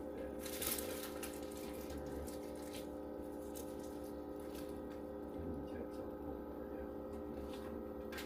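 Steady hum of a machine running in the room, several even tones held level with a low drone beneath.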